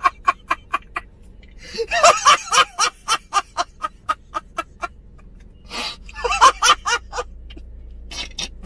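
A man laughing hysterically in rapid, gasping bursts of several a second, in three or four fits with short pauses between.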